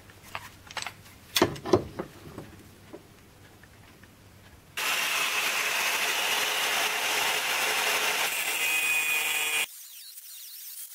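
Metal clanks and knocks as a steel bracket is set in a bench vise, then about five seconds in an angle grinder disc bites into the steel with a loud, steady grinding hiss, trimming down the bulky bracket. Near the end the grinding drops suddenly to a much quieter level.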